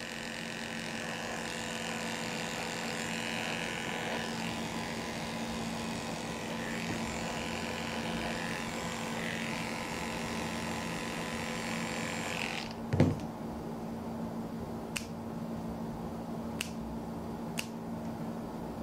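Electric dog clippers running steadily as they shave the fur between a dog's paw pads, switched off about two-thirds of the way through. A thump follows, then a few sharp clicks, spaced about a second apart, of nail clippers cutting the dog's nails.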